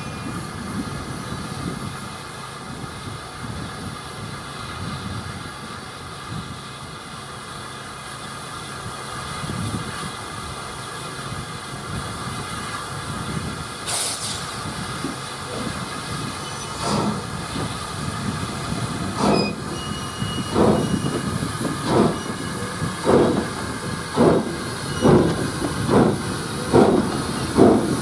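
Peckett OY-1 0-4-0 saddle tank steam locomotive getting a train away from a stand on a gradient: two heavy exhaust chuffs, then quieter working under a steady steam hiss. From about two-thirds through, sharp exhaust beats about once a second, growing louder and a little quicker as it comes up the bank.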